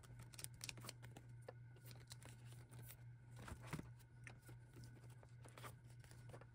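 Faint rustling and crinkling of plastic binder pocket pages and photocard sleeves as cards are handled and a binder page is turned, with scattered soft clicks over a low steady hum.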